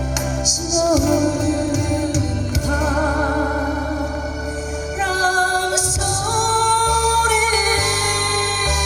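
A female voice singing long, wavering held notes over a backing band track of bass and keyboards.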